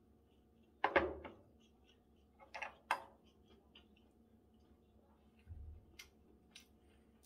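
A glass soju bottle and a shot glass set down on a table: a loud knock with a short ring, then two sharper knocks a couple of seconds later. Light clicks of metal chopsticks on a plate follow near the end.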